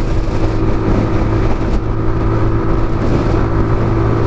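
Motorcycle engine running steadily at cruising speed while the bike is ridden, with strong wind buffeting the helmet-mounted microphone.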